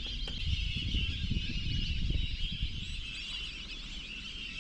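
A dense chorus of many birds chattering together, with a low rumble underneath.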